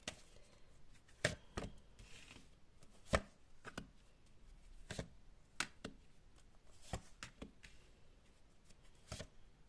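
A deck of Lenormand cards being shuffled and laid out on a table: irregular sharp taps and slaps of cards, a dozen or so, with the loudest about three seconds in.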